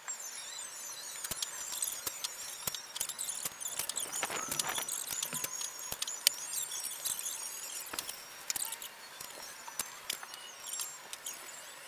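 Thin plastic masking sheeting crinkling and rustling as it is spread over a car, sped up by time-lapse into a dense run of clicks, crackles and short high squeaks.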